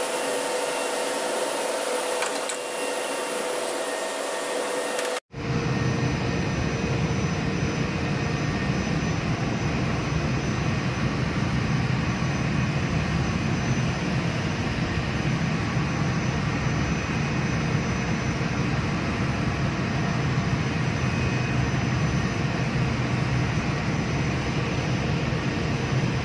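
Steady whirring hum of running machinery. It changes abruptly about five seconds in to a deeper, heavier hum.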